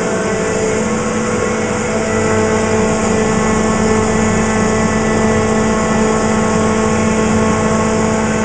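PET flakes pelletizing line running steadily: a constant machine hum holding several pitches at once.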